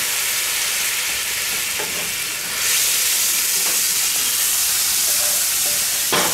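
Water hissing and sizzling in a hot skillet as it deglazes the pan after frying minced meat, with a wooden spatula stirring and scraping the pan bottom. The hiss gets louder about two and a half seconds in, and there is a knock near the end.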